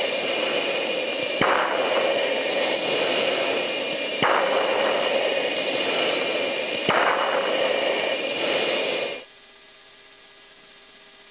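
Jet noise inside an F-15 cockpit in flight: a steady roar of engine and airflow with whining tones over it, broken by a click and a brief rise in level about every three seconds. About nine seconds in it cuts to a much quieter steady drone inside a refuelling tanker aircraft.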